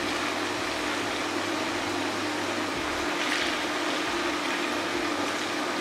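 Potato slices and pepper strips frying in plenty of hot sunflower oil in a non-stick pan: a steady sizzle.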